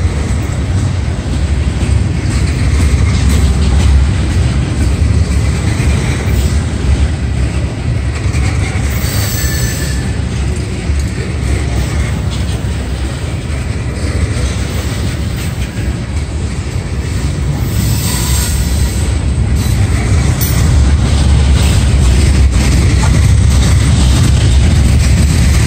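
Loaded Herzog ballast cars rolling past close by: a steady heavy rumble of steel wheels on rail, growing somewhat louder near the end, with faint wheel squeal at times.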